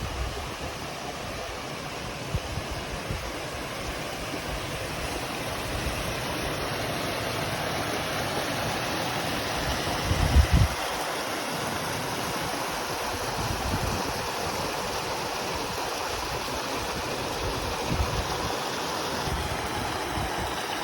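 Steady rush of flowing water, with occasional low rumbles of wind on the microphone, the strongest about halfway through.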